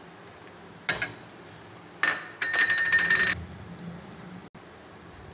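A metal spoon clinks once against a steel vessel about a second in, then scrapes and rings against it for about a second and a half, as ground spices are measured out by the tablespoon.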